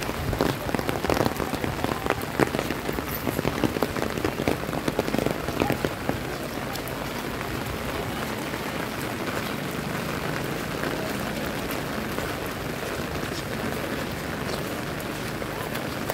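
Heavy rain falling, an even hiss. For the first six seconds or so it is dotted with many sharp, close drop hits, then it settles into a smoother, steady hiss.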